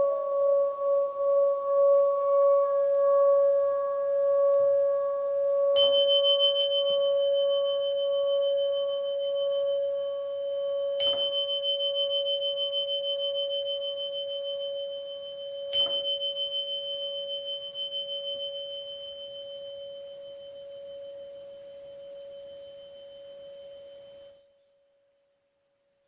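A singing bowl rings with a steady low tone that pulses slowly in loudness and gradually fades. Three sharp strikes about five seconds apart each set a high, bell-like tone ringing over it, and everything stops abruptly near the end.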